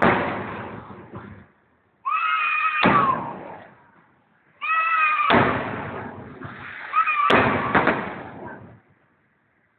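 Aerial fireworks going off. Twice a high whistle is followed by a bang that rumbles away over about a second, and then comes a third bang with its own rumble. The first moments hold the fading rumble of an earlier burst.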